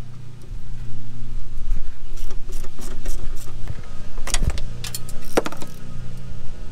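Metal clinks and clanks of the engine hoist chain and the hanging V8 engine knocking against the engine bay as it is worked free, over a steady low hum. The loudest are a few sharp knocks past the middle.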